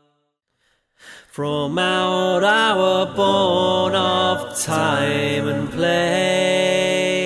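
About a second of silence, then a cappella male voices singing long held notes in harmony, with no instruments.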